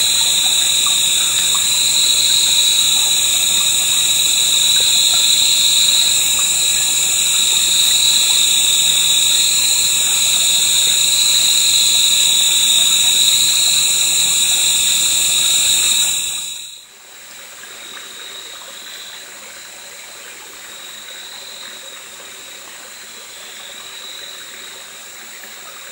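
Dense night chorus of crickets and katydids: Ryukyu matsumushi crickets, Taiwan kutsuwamushi katydids and kuchiki crickets, all singing at once as a steady, loud, high ringing trill. About sixteen seconds in it cuts off abruptly, and a much quieter mountain stream trickles on.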